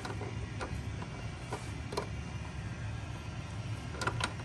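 A few light clicks and taps of small plastic parts being handled as the dehumidifier pump's little filter is pushed back into place, over a steady low hum.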